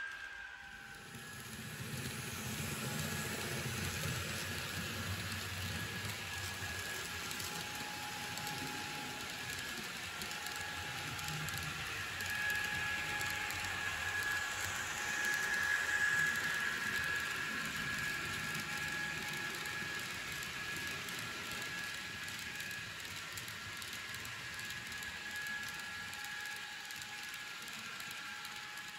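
N-scale model freight train rolling past. The Fleischmann Class 1600 electric locomotive's DCC sound decoder plays a steady electric-locomotive tone over the rattle of the wagons' wheels on the track. It is loudest about halfway through as the locomotive passes.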